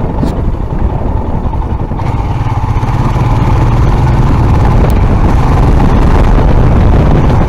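Motorcycle engine running under way, heard from on the bike. It gets louder between about two and four seconds in, then holds steady.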